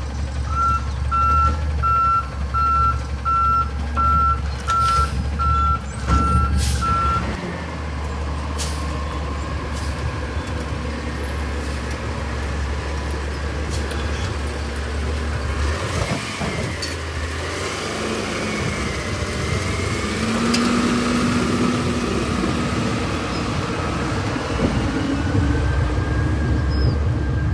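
Peterbilt 320 front-loader garbage truck running on compressed natural gas. Its reversing alarm beeps steadily for about the first seven seconds over the heavy engine, with a few sharp clanks. Later a wavering whine rises and falls over the running engine as the front forks work.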